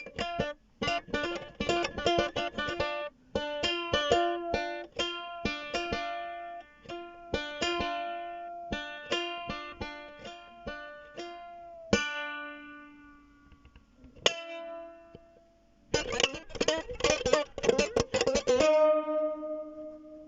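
A plucked string instrument played solo: a run of quick picked notes that thins out to a few slower ones, then a burst of fast strumming ending on a chord left ringing.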